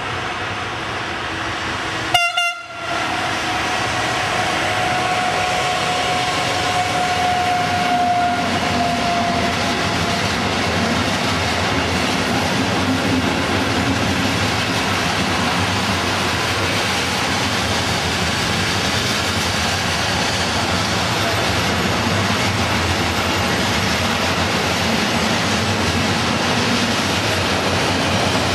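Siemens class 189 electric locomotive and its long intermodal freight train passing close by: a continuous rumble and clatter of wagons rolling over the rails. A steady high tone is heard from about three seconds in and dies away by about ten seconds, and a short sharp crackle with a brief dropout comes about two seconds in.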